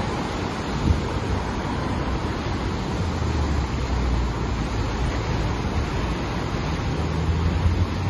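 Heavy ocean surf breaking and washing over basalt rocks, a continuous rush of churning water, with wind rumbling low on the microphone.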